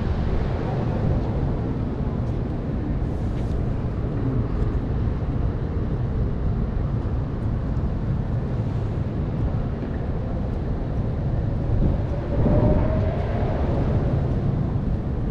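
Wind buffeting the microphone in a steady low rumble, with a faint tone rising slightly about twelve seconds in.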